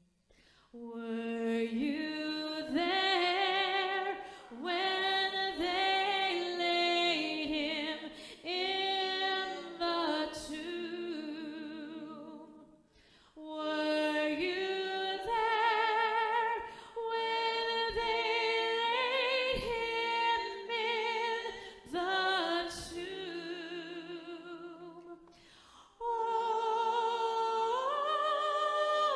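A single voice singing unaccompanied, long held notes with vibrato, in phrases broken by short pauses about 13 and 26 seconds in.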